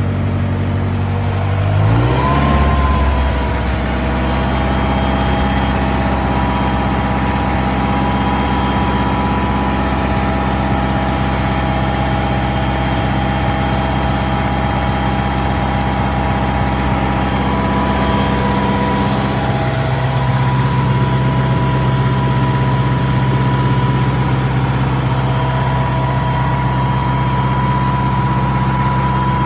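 Wisconsin W4-1770 four-cylinder gasoline engine of a circle-cut concrete saw running. It speeds up sharply about two seconds in, then runs steadily at the higher speed.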